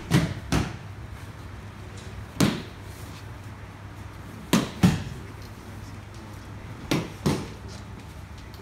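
Aikido breakfalls: bodies and arms slapping onto the tatami mats as attackers are thrown, seven sharp thuds, mostly in pairs about every two seconds.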